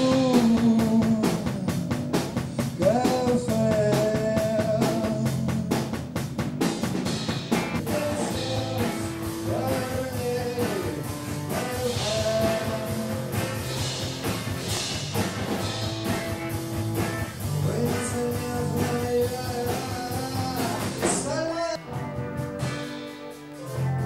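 Amateur rock band playing live: electric guitars and a drum kit, with a sustained, sliding lead melody over the beat. The music breaks off for a moment near the end.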